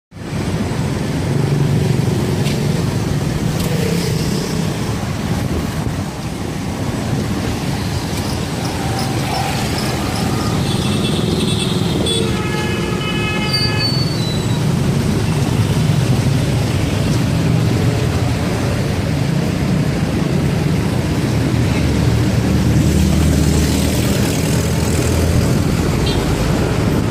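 Steady street traffic noise from passing motor vehicles. A horn toots briefly about halfway through.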